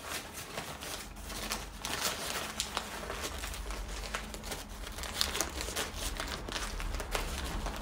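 Sego gele headwrap fabric rustling and crinkling irregularly as hands tuck and adjust its folds on the head.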